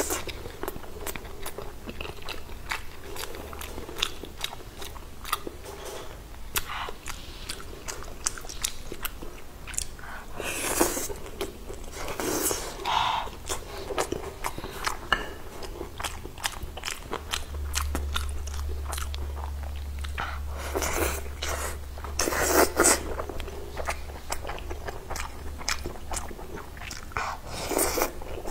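A person chewing and biting food close to a clip-on microphone: a run of wet clicks and smacks, with a few louder mouth noises, as she eats soft braised pork belly and rice.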